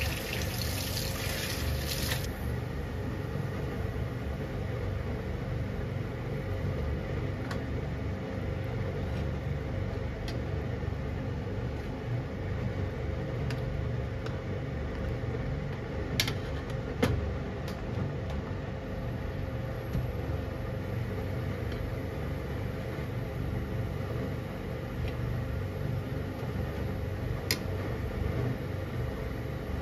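Chicken pieces boiling in a pan of water on a gas burner, with a steady low bubbling rumble. A metal ladle skims the foam, giving a few light clicks against the pan in the second half.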